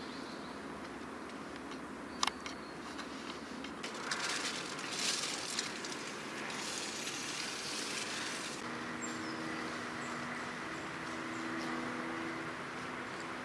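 Outdoor background hiss with a sharp click near two seconds and crackling rustles in the middle. From about two-thirds in, a steady low drone of distant traffic joins it.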